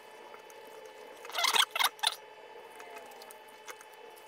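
Wet squelching from Kewpie mayonnaise being worked by hand over raw chicken skin, with three short, louder squelches in quick succession a little past a second in, over a faint steady hum.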